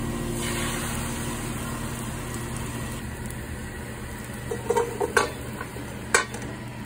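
Beaten eggs sizzling as they hit a hot non-stick frying pan, then frying with a steady low sizzle. In the last seconds come three sharp clacks as the spatula and pan scrape the scrambled egg and lima beans into a stainless steel bowl.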